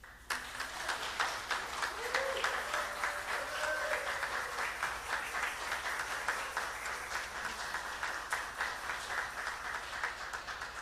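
A congregation applauding, with many hands clapping; it starts suddenly and keeps up steadily.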